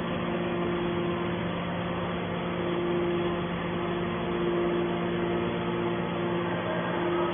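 Hydraulic can baler's motor and pump running with a steady hum, a higher tone above it dropping out briefly now and then.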